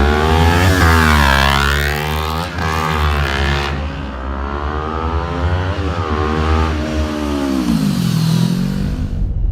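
Kawasaki Ninja 400 parallel-twin engine revving, its pitch rising and falling several times, then cutting off abruptly near the end.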